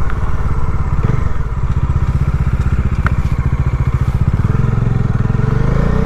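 Bajaj Dominar 400's single-cylinder engine running steadily while riding, its pitch rising in the last couple of seconds as the bike accelerates.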